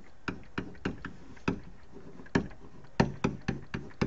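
Stylus tip tapping and clicking on a pen tablet while handwriting: a string of sharp, irregular taps, a few per second, with the letter strokes.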